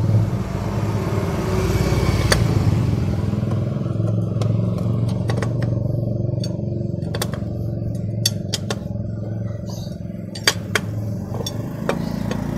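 Sharp metallic clicks and clinks of a T-handle wrench working on the bolts of a scooter engine's crankcase, coming thickest in the second half, over a steady low hum of an engine running.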